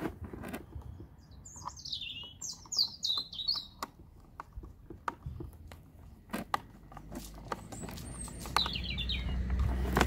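A small songbird singing outdoors: quick runs of high, falling chirps from about one and a half to four seconds in, and a shorter run near the end. Light clicks and rustles from cables and clips being handled at a solar charge controller's terminals come through, with a low rumble rising over the last few seconds.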